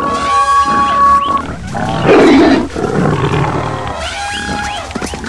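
Overlapping animal calls from a stampede sound-effect mix: long pitched cries, then a loud roar about two seconds in.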